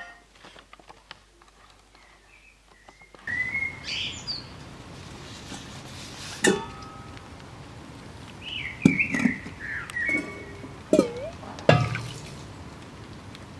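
Small birds chirping from about three seconds in, with a few sharp clinks and knocks of ceramic flower pots being handled and set down.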